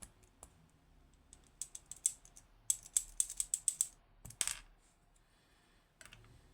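Small metal clicks and ticks as the passive pins of a Mottura C28+ dimple lock are fitted back into their holes. A few scattered ticks, then a quick run of about half a dozen clicks, and one louder click about four and a half seconds in.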